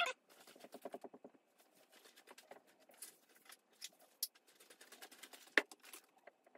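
Scattered light taps, clicks and rustles of hands handling wire and tools at a wooden workbench, with a sharper knock about five and a half seconds in.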